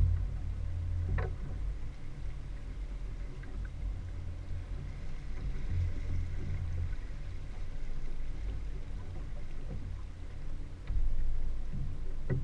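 Outboard motor running steadily as the boat moves through the water, a low hum with water wash, getting louder near the end. A brief knock about a second in.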